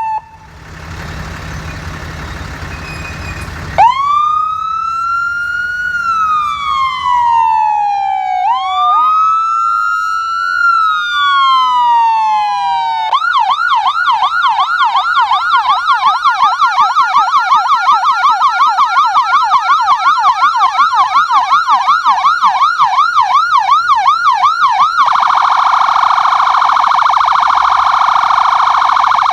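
Ambulance electronic siren running through its tones: slow rising and falling wails, then a fast yelp, then a rapid steady-pitched warble near the end. The siren is preceded by a loud rushing noise for the first few seconds.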